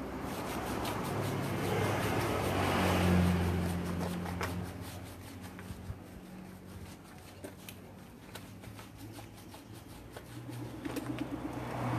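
A motor vehicle passing by, its engine sound swelling to a peak about three seconds in and then fading, with another vehicle approaching near the end; scattered small clicks throughout.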